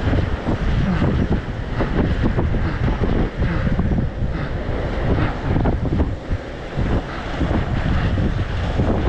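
Wind buffeting a camera microphone carried at inline-skating race speed: a loud, steady rush with a gusty low rumble.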